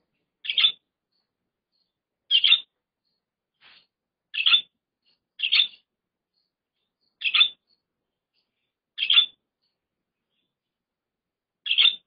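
Budgerigar calling: short, high chirps repeated at intervals of about one to two seconds, seven clear ones and one faint one, with silence between.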